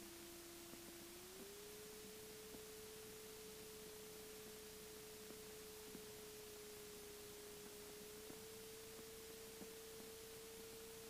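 Near silence with a faint steady whine, a single pure tone that steps up slightly in pitch about a second in and again about eight seconds in, plus a few faint ticks. The aircraft's engine itself is not heard.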